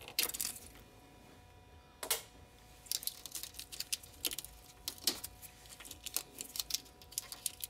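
Gloved hands peeling and picking old electrical tape off a wheel speed sensor wiring harness: a run of small, sharp, irregular clicks and crackles that comes thicker from about two seconds in, over a faint steady hum.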